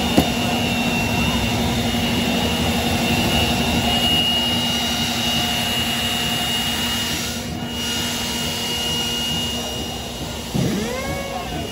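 A steady machine drone with a constant high whine over a low hum, running throughout. Near the end there are brief rising-and-falling tones.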